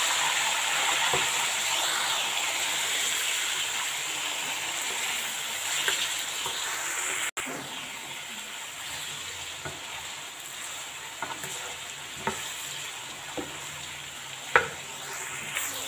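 Marinated chicken pieces sizzling as they fry in oil in a karahi, stirred with a wooden spatula. The sizzle is louder at first and settles lower about halfway through, and the spatula knocks against the pan a few times near the end, once sharply.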